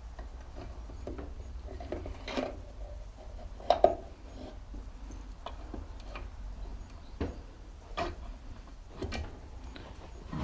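Scattered clinks and knocks of hand tools and metal bike parts while a monkey bike's rear wheel is being fitted, the loudest a sharp double knock about four seconds in, over a low steady hum.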